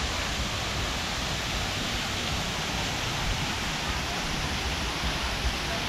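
Steady rushing of falling water from a man-made waterfall.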